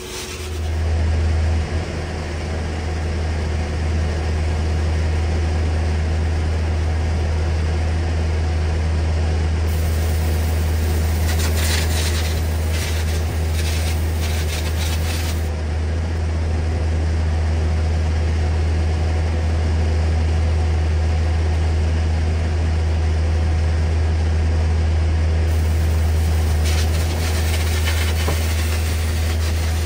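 Steady, loud low-pitched machine drone, with brief scratchy, scraping sounds partway through and again near the end.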